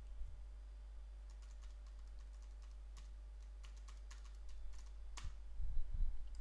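Computer keyboard typing: a run of light keystrokes as a password is entered, then a single sharper click about five seconds in.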